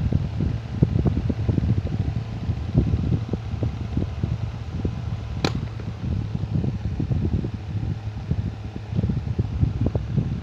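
Electric fan running with a steady low hum and an irregular rattling clatter, the noise of a faulty fan; one sharp click about halfway through.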